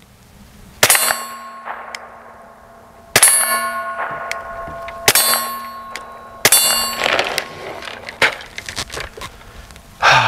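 About five spaced shots from a suppressed Taurus TX22 .22 LR pistol, each a sharp crack. The first four are each followed by a ringing metallic clang that lasts a second or more. A short noisy burst comes just before the end.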